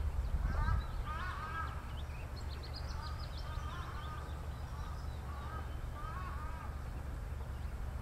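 Birds calling: short wavering calls repeated every second or so, with a flurry of high, thin chirps about two to three seconds in, over a steady low rumble.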